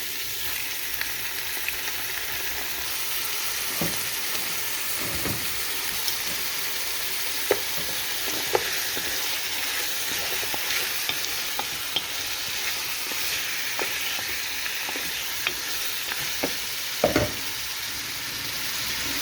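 Lamb pieces frying in hot oil with garlic and onion: a steady sizzle, with scattered clicks and a few louder knocks as a utensil stirs the meat against the pan.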